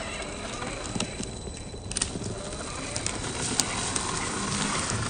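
Gmade GS02F Buffalo RC crawler driving over dry pine needles and twigs: scattered crackles and snaps under its tyres over a steady hiss.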